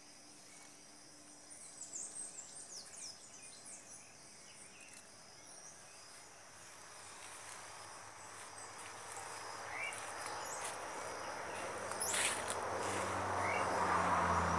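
Insects buzzing steadily, with a few short bird chirps a couple of seconds in. Through the second half, a rushing noise swells steadily louder, with a low hum near the end.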